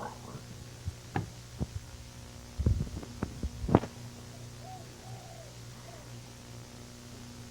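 Washing machine running with a steady low hum, and a run of knocks and clicks between about one and four seconds in, the loudest just before four seconds.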